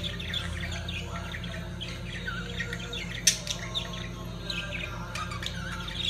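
Budgerigars chattering and warbling in quick, busy chirps, the courtship warble of a pair billing. A single sharp click a little past three seconds in is the loudest sound.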